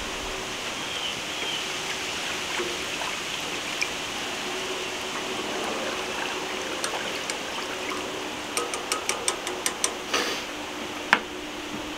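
Wire whisk stirring a thin, vinegar-based sauce in a stainless steel saucepan, a steady watery swishing. Near the end comes a quick run of light metallic taps, then a single click.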